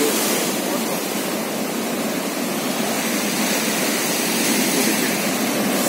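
Heavy surf breaking over rocks and a seawall: a steady rush of churning water with small swells as waves come in. The seas are still rough after a hurricane has passed.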